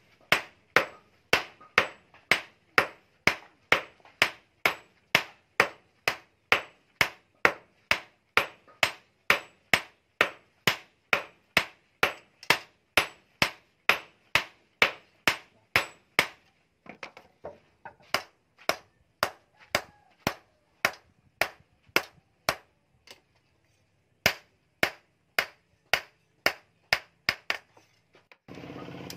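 Hand hammer striking hot rebar on a steel post anvil as the blade is drawn out: a steady run of sharp metal-on-metal blows, about two and a half a second. Partway through they break off, then come back in shorter, uneven runs.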